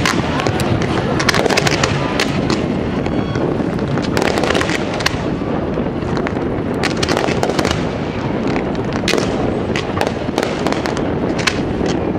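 Fireworks display heard at close range: an unbroken barrage of launches and bursting aerial shells, many sharp bangs and cracks over a constant rumble.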